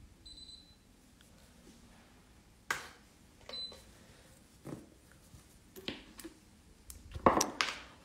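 A short high electronic beep just after the start and another brief beep about three and a half seconds in, among scattered clicks and taps of small objects being handled, which come thick and loud near the end.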